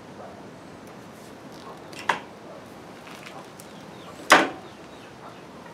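Two sharp metallic clicks about two seconds apart, the second louder: wire strippers snipping a fixture wire, then the tool clacking down on the workbench.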